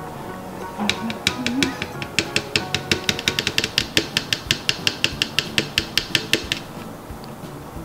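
Small plastic squeeze bottle of slime colorant shaken hard over a plastic bowl, making a fast run of sharp clicks, about six a second, for some five seconds. Background music plays underneath.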